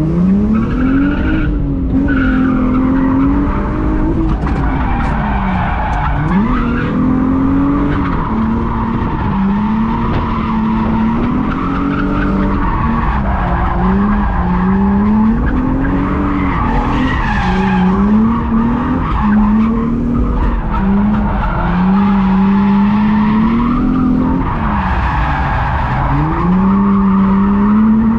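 Infiniti G35's 3.5-litre VQ V6 engine heard from inside the cabin while drifting, the revs climbing and dropping again and again, about every three seconds. Tyres squeal under it as the car slides.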